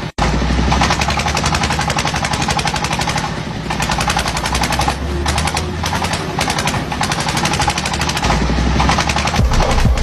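Crawler rice combine harvester running under load: a steady engine hum with a fast, even rattle of machinery over it. The sound cuts out for an instant just after the start.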